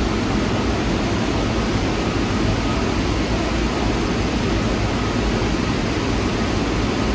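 New York City subway train running: a steady, loud rumble with a hiss above it that does not let up.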